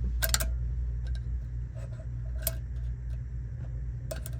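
Screwdriver clicking against the metal of a Club Car's shifter micro switch arm as it is worked into place, a few sharp clicks: a quick cluster at the start, one in the middle and a couple near the end. A steady low hum runs underneath.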